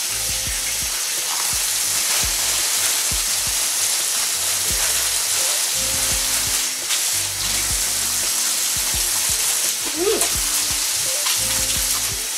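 Water running steadily from a kitchen faucet while hands are washed, a continuous hiss.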